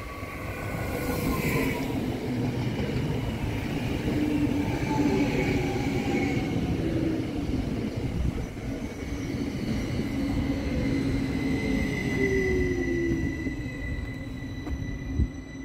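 S-Bahn Hannover Stadler FLIRT electric multiple unit arriving and braking: wheels rumbling on the rails, with an electric traction whine that falls in pitch as it slows to a stop. A single short knock near the end.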